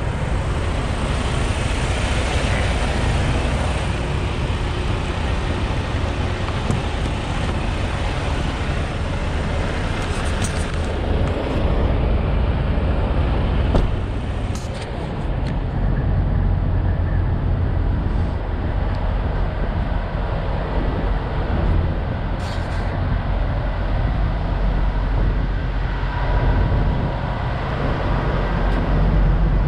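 Steady low rumble of semi-truck engines idling, with a few short knocks.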